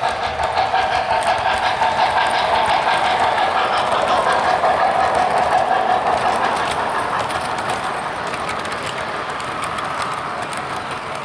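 MTH RailKing O-gauge 0-6-0 steam switcher model and its freight cars running past on three-rail track, wheels clattering steadily over the rails along with the locomotive's running sound. The sound fades through the second half as the train moves away.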